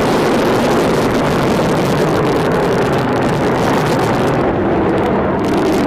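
Rocket motor of a ballistic missile lifting off from its silo: a loud, steady, rushing roar.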